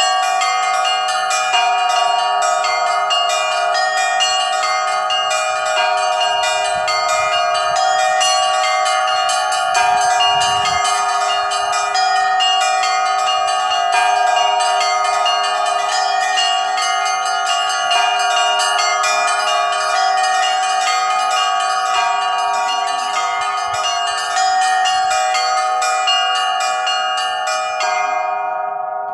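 Russian Orthodox church bells of the Kizhi belfry being rung: many bells struck in rapid succession over the steady ringing of the larger bells. Near the end the striking stops and the bells ring on, fading.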